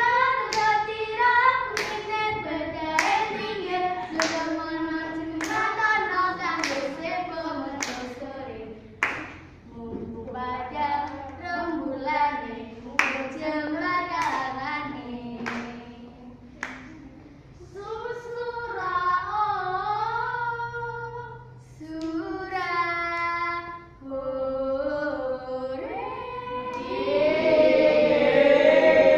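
Children singing a song together in unison, with hand claps about once a second through the first half. A louder burst of voices comes near the end.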